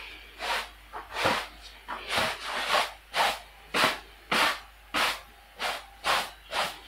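A broom sweeping a rug in quick, regular strokes, a swish a little under twice a second.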